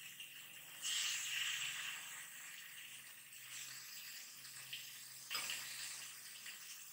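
Mutton pieces frying in olive oil in a wok, being seared half-cooked: a light steady sizzle that swells about a second in as the meat is turned with a fork, with a short tap of the fork against the pan about five seconds in.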